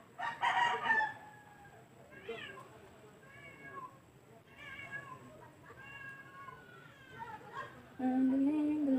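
An animal crying repeatedly: a louder falling cry just after the start, then faint short pitched cries about once a second. Near the end a person starts humming a low, steady note.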